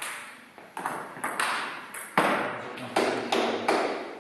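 Table tennis balls clicking sharply off bats and tables in rallies, about ten irregular hits with a short echo after each.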